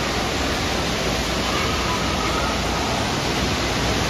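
Steady rushing-water noise in a water park, from the pool's moving water and the splashing in it.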